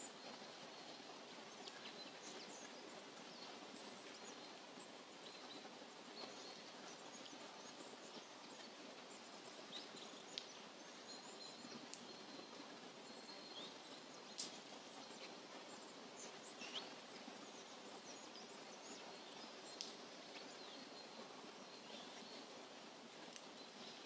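Faint outdoor ambience: a soft, steady hiss with songbirds chirping here and there in short, sharp calls, a few of them standing out clearly. A thin high note comes and goes in the background.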